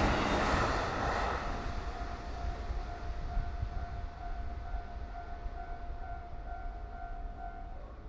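The noise of a passing train fades away in the first second or so, then the level crossing's electronic warning bell rings on steadily and stops just before the end.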